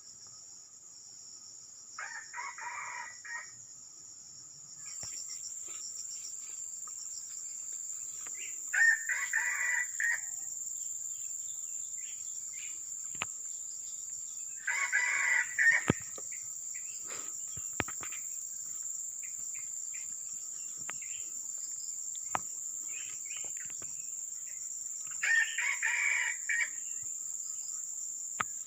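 Junglefowl crowing: four short crows of about a second each, spaced several seconds apart, over a steady high drone of insects that grows louder a few seconds in. A few sharp clicks are heard in between.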